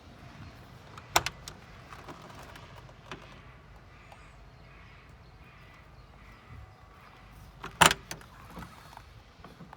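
Two sharp knocks, one about a second in and a louder one near the end, over a low steady background with a few faint ticks.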